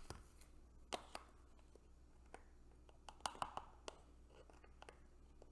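Faint scattered clicks and taps of a spice container and measuring spoon being handled, a pair about a second in and a small cluster a little past three seconds in.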